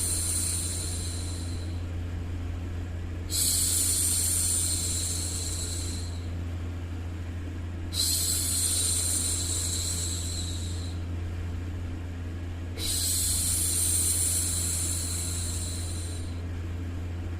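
A woman's voice shushing a baby: a long 'shhh' of about three seconds, repeated roughly every five seconds, four times, over a steady low hum.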